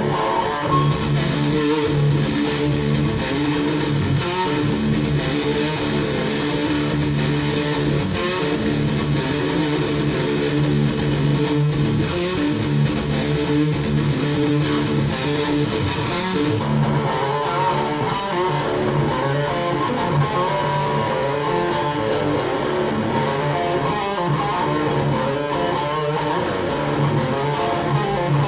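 Background music led by guitars, electric and bass, with a steady groove.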